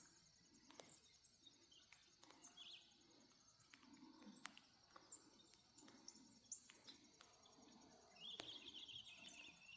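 Small brown songbirds chirping faintly: a short twitter a couple of seconds in and a longer run of chirps near the end, over a steady high insect trill.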